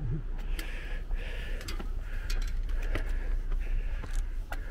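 Footsteps climbing concrete stairs at a steady pace, about a step every half-second, with hard breathing between the steps and a steady low rumble on the microphone.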